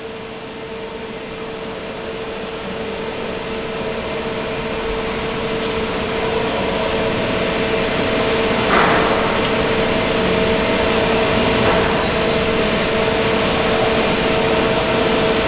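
Steady machine hum with two steady tones, growing gradually louder, from the wheel-removal equipment while the jack under the wheelset axle is finely adjusted to level it. A short knock about nine seconds in.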